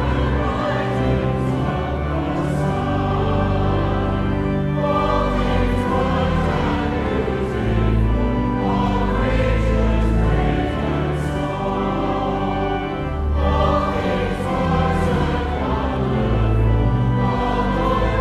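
Choir singing with instrumental accompaniment in slow, held chords over a strong bass line.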